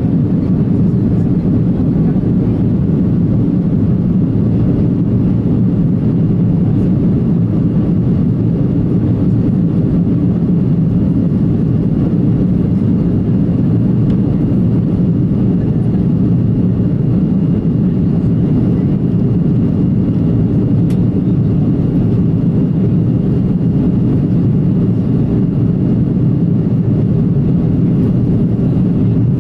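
Airbus A330-343E airliner in flight, heard from inside the cabin: a loud, steady low rumble of its Rolls-Royce Trent 700 engines and the rushing air, with a faint steady high whine above it.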